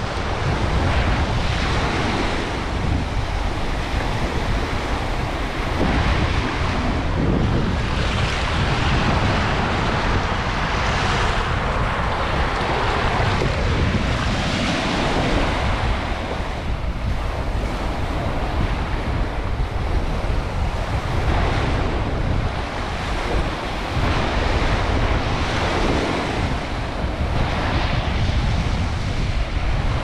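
Sea waves breaking and washing up on a sandy beach, surging and easing every few seconds, with wind rumbling on the microphone.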